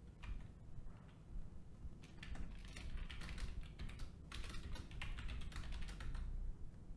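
Computer keyboard keys being typed in several short bursts of keystrokes with brief pauses between.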